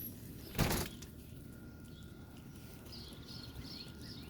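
Outdoor ambience: a short bump about half a second in, then a bird chirping a quick run of repeated high notes, about three a second, from about three seconds in.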